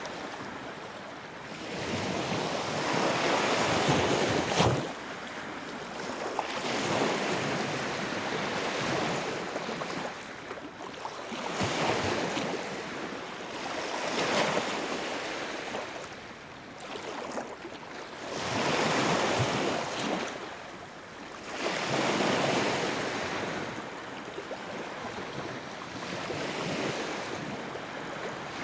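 Sea waves breaking and washing up on the shore, a steady rushing surf that swells and ebbs every few seconds.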